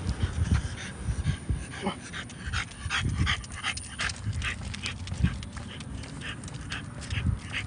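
French bulldog panting in short, quick breaths, about two to three a second, with a few low thumps underneath.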